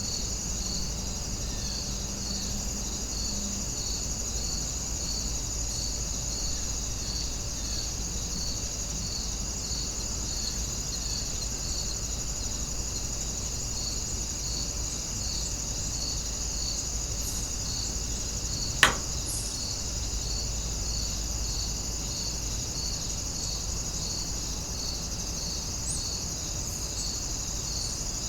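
Chorus of night insects: a steady high-pitched trill with a chirp repeating evenly, a little more than once a second. A single sharp click about nineteen seconds in.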